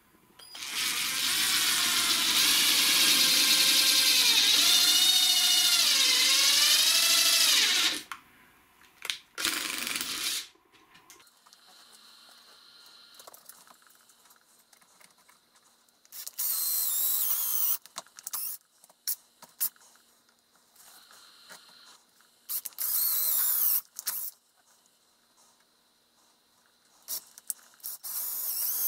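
Cordless drill boring into a slice of white birch log. One long run of about seven seconds, with the motor's pitch dipping under load, is followed by several shorter bursts that each wind down as the trigger is let go.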